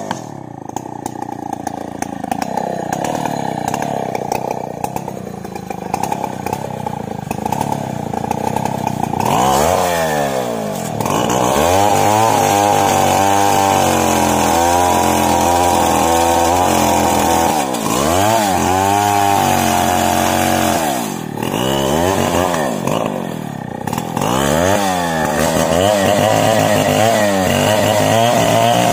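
Two-stroke chainsaw cutting into the trunk of a large mahogany tree at high revs. Its engine pitch sags and picks up again several times as the bar works through the cut.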